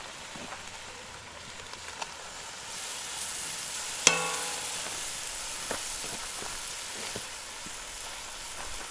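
Food sizzling in a dutch oven, growing louder about three seconds in, with a few light stirring sounds. About four seconds in, one sharp metal clink rings out briefly against the pot.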